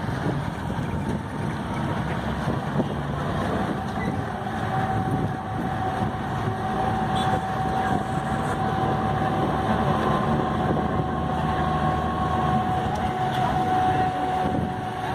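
A vehicle ferry's engine running steadily as the ferry comes alongside the landing. A steady high whine joins about four seconds in and stops near the end.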